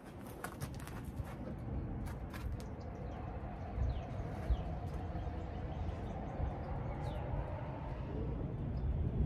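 Outdoor background of a steady low rumble, with a few faint clicks in the first couple of seconds and several short, high, falling bird chirps.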